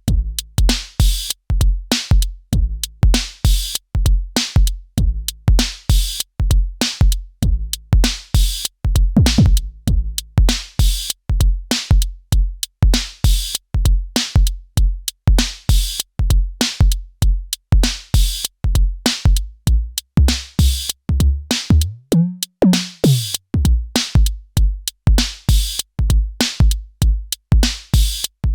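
Elektron Syntakt drum machine playing a looping electronic drum pattern: a steady kick about twice a second with crisp high hits on top. About 22 seconds in the kick drops out for roughly a second under a pitch glide that rises and falls, then the beat comes back in.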